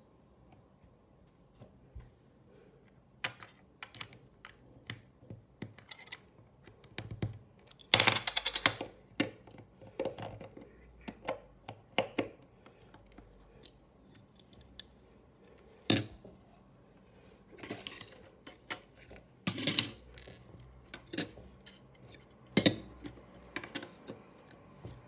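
Plastic Lego pieces clicking and clacking as they are handled and pressed together, with scattered sharp clicks and a longer rattling run about eight seconds in.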